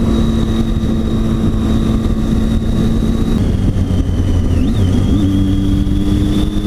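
Triumph Tiger 800 XC's three-cylinder engine running under way, with a steady rushing wind and road noise over it. The engine note drops about three and a half seconds in and settles on a new steady pitch about five seconds in.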